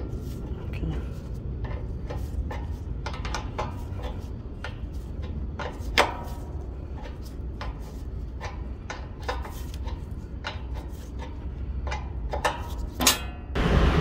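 Irregular metal clicks and knocks of a 14 mm wrench working a bolt while the truck's step is refitted, over a steady low rumble.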